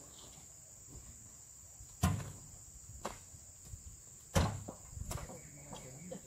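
Heavy oil palm fruit bunches thudding as they are heaved up onto a truck's load. There are two loud thumps about two seconds apart and a few lighter knocks, over a steady high insect buzz.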